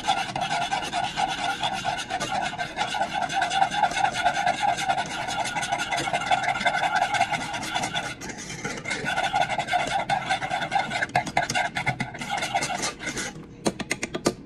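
Small wire whisk beating powdered brown gravy mix into water in a saucepan: rapid scraping and clinking of the metal wires against the pan. It pauses briefly about eight seconds in and slows to separate strokes near the end.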